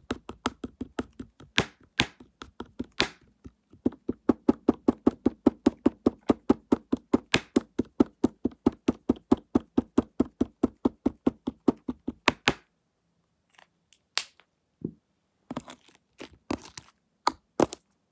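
Slime being mixed to work dye in, making quick, regular knocks at about five a second; they stop about two-thirds of the way through, leaving a few scattered knocks and clicks.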